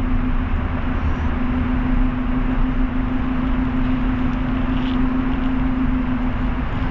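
Car being driven: steady road and tyre noise with a constant low hum.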